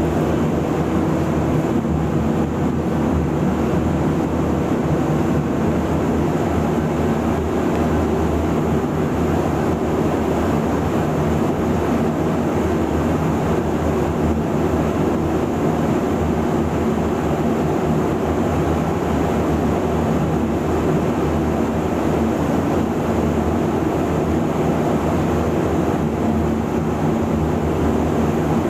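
Steady rushing hum of a powder-coating spray booth's air extraction, with an electrostatic powder gun spraying powder onto an alloy wheel.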